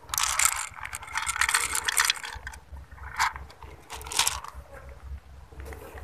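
Kitten crunching dry kibble from a plastic bowl: a dense run of crisp crunching clicks for about two seconds, then a few shorter crunches.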